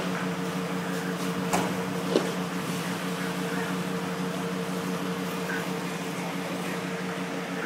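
Steady machine hum over a constant hiss, typical of a fire engine's pump running while a hose sprays water onto a burning car. Two short knocks come about 1.5 and 2 seconds in.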